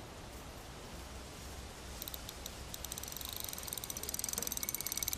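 Spinning fishing reel clicking in a fast, even run of ticks that starts about two seconds in and grows louder, as a hooked fish is played on a feeder rod. Before that, only a steady hiss.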